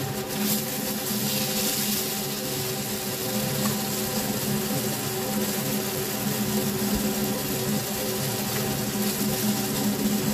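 New York strip steak searing in a nonstick frying pan: a steady sizzle with small crackles of spattering fat, swelling for a couple of seconds after the steak is turned with tongs. A constant motor-like hum runs underneath.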